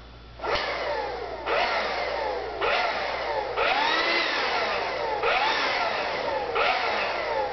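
A boy's vocal imitation of a motorcycle: a buzzing engine noise made with the mouth, revving up and dropping in repeated rising-and-falling sweeps, about one a second, like shifting through gears.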